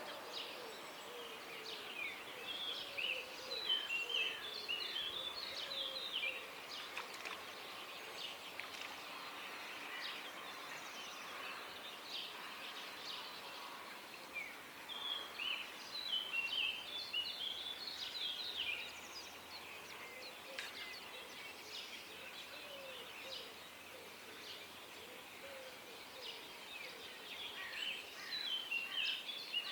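Several birds singing and calling at dawn: quick runs of high chirps and trills that come in spells, with a few lower calls underneath, over a faint steady outdoor hiss.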